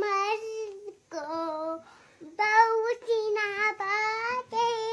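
A young boy singing in a high voice, holding long notes in several phrases with short breaks between them.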